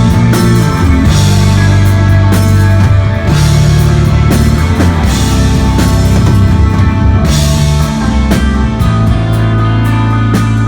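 Instrumental desert rock band playing live and loud: electric guitar over heavy held bass notes, with drum hits and recurring cymbal crashes.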